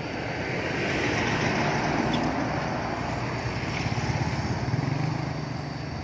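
A road vehicle passing by: a rush of engine and tyre noise with a low hum that builds over the first second, grows louder toward the end, then fades.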